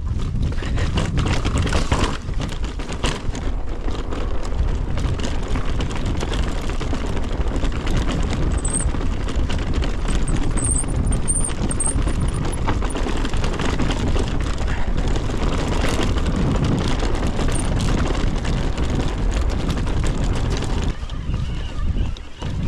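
Wind rushing over the camera microphone as a mountain bike rides a rough, stony trail, with steady knocks and rattles from the bike over the stones.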